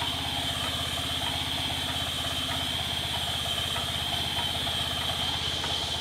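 An engine running steadily with an even, rapid low pulse, under a steady high-pitched whine.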